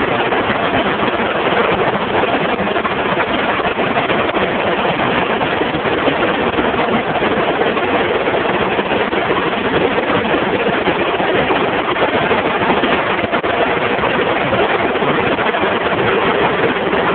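Web offset newspaper press running: a loud, steady mechanical din with no letup.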